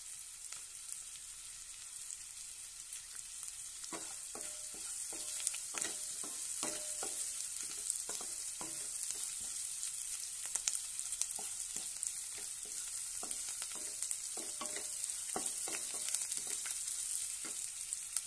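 Sliced onions sizzling in hot oil in a nonstick kadai, being fried until golden, while a wooden spatula stirs them. From about four seconds in, the spatula knocks and scrapes against the pan again and again.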